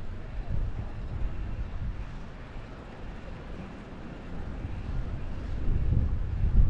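Wind buffeting the microphone of a camera riding along on a moving bicycle, a low rumble that eases off in the middle and grows louder again near the end.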